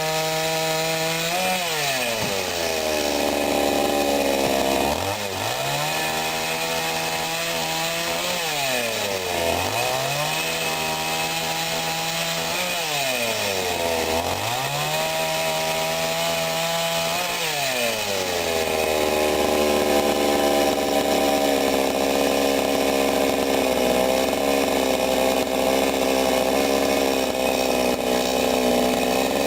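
Sadko GCS 510E two-stroke petrol chainsaw running. Its engine is revved high, eases down and rises again about four times, then runs at low revs through the last third.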